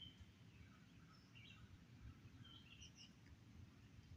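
Faint, scattered high bird chirps, a few short calls over low outdoor background rumble.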